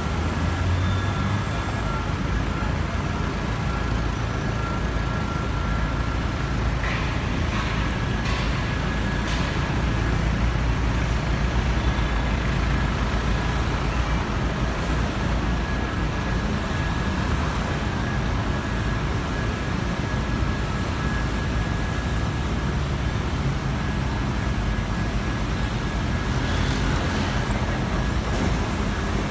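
City street traffic: a steady low rumble of car and motorcycle engines and tyres passing close by, with a faint steady high-pitched whine underneath.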